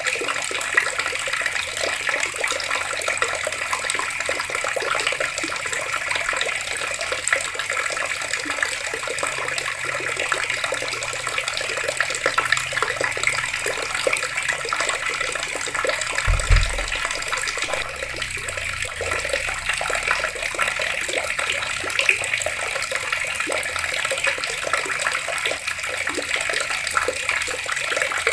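Water running steadily from taps and splashing down, an even rushing splash. A single low thump comes a little past halfway.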